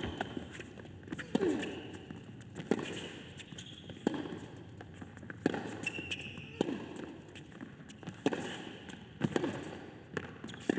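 A tennis rally on a hard court: racket strings hitting the ball in a steady back-and-forth, about one sharp strike every second and a half, with short player grunts on a few of the shots.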